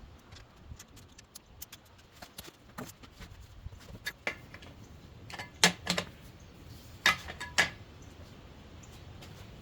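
Scattered light clicks and clinks of metal hardware and tools being handled while assembling patio furniture, with four sharper knocks about halfway through.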